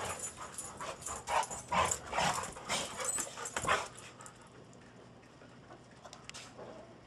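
Two dogs at rough play, giving short yips and whines in quick bursts for about four seconds, then going quieter.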